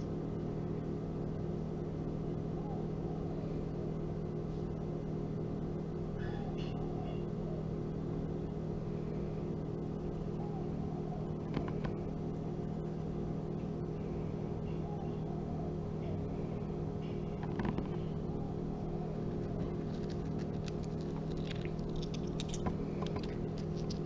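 A steady low background hum, with a few faint light clicks of small crystals being handled, coming more often near the end.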